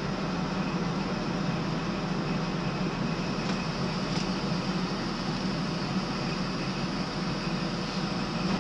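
Steady running noise inside the driving cab of a Class 43 HST power car on the move: an even drone and rumble, strongest in a low hum, that holds at one level throughout.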